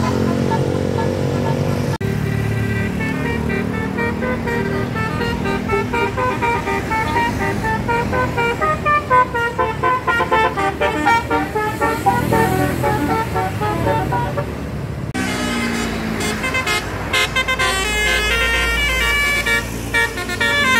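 Bus telolet horn, a multi-tone musical air horn, playing a quick tune of short notes stepping up and down, and repeating it for about fifteen seconds. Then the tune stops and engine noise and traffic follow, with a deep rumble near the end.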